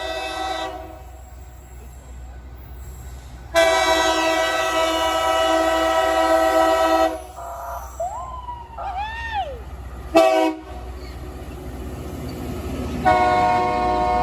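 Air horn of an approaching LORAM rail grinder train sounding a multi-note chord: a long blast, a brief toot and another long blast, the grade-crossing pattern, over the steady low rumble of the train.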